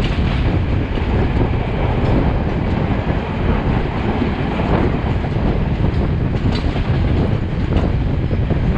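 Passenger train running fast: a steady rumble of carriage wheels on the rails, with a few faint clicks from the track late on.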